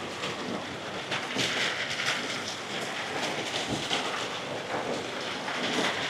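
Rain falling steadily, a continuous hiss and patter.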